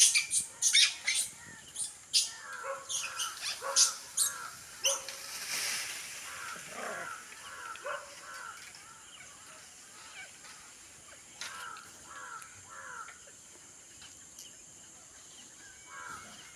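Animal calls from the trees: sharp, high chirps in quick succession for the first few seconds, then a run of short repeated calls, about three a second, that thin out, with a few more near the end.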